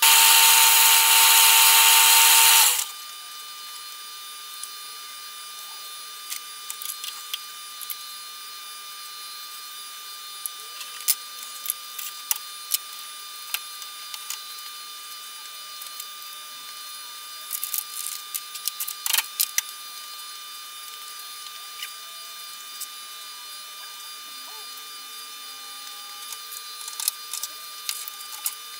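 Metal lathe running and drilling into a brass-coloured blank with a twist drill held in the tailstock chuck, a loud steady machine noise that cuts off about three seconds in as the lathe is stopped. After that come scattered light clicks and knocks from hands working the lathe's three-jaw chuck.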